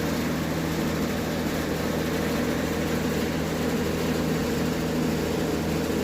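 Recommissioned unit heater running, a steady hum with an even rush of air. It runs on without cycling off.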